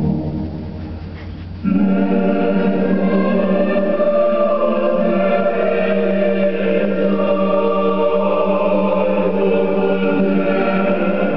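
Choir singing sustained, several voices at once; the sound dips between phrases for about the first second and a half, then the next phrase comes in at full level.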